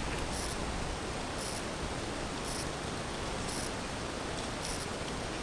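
Steady outdoor hiss from the camera's microphone, with faint high chirps or ticks repeating about once a second.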